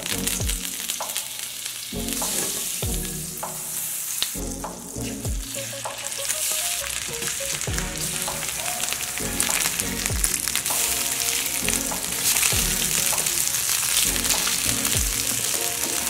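Sesame-crusted fish pieces sizzling as they sear in hot oil and butter in a frying pan. The crackling sizzle grows louder as the pieces go in.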